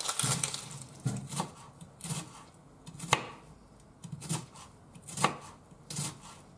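Kitchen knife slicing a peeled onion on a wooden cutting board, the blade knocking on the board in slow, irregular strokes about once a second, each with a dull wooden thud.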